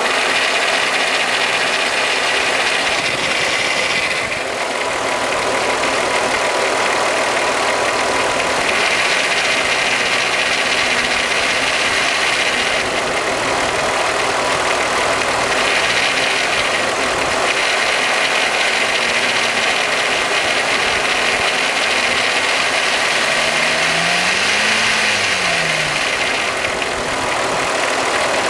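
Volkswagen Golf Mk3 VR6 engine idling with a rattle from the timing chain. The rattle grows and fades in strength through the clip. It is the sign of a worn timing chain and tensioner that the owner says should not be ignored.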